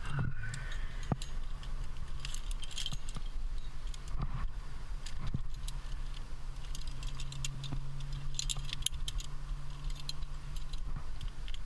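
Metal climbing gear, carabiners and cams racked on the harness, clinking and jangling in short clusters, about two seconds in and again around seven to nine seconds in. A low steady hum runs underneath.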